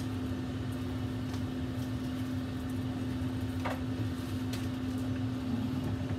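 Steady mechanical hum with a constant low tone, with a couple of faint taps about midway.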